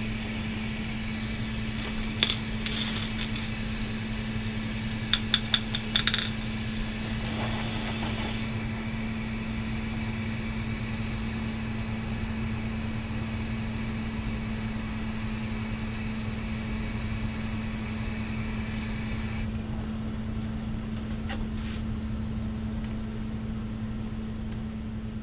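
Glass rods clinking against each other in two short clusters, about two and five seconds in, over a steady low hum and the hiss of a glassworking bench torch. The torch hiss stops about two-thirds of the way through.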